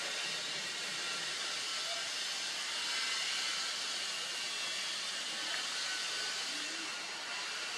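Steady, even hiss of outdoor background noise, strongest in the high range, with no distinct calls or knocks standing out.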